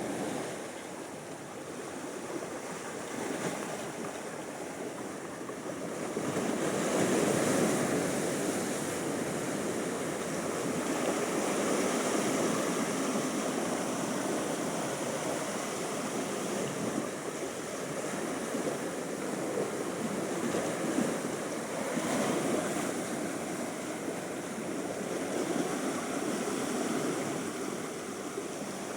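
Sea waves at high tide breaking and washing up the beach: a continuous surf that swells loudest about seven seconds in and surges again a few more times.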